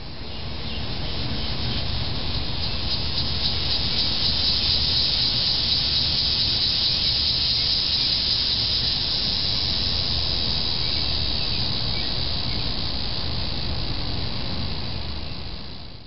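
Annual cicada singing: a loud, steady, high-pitched buzz that swells in over the first couple of seconds and then holds.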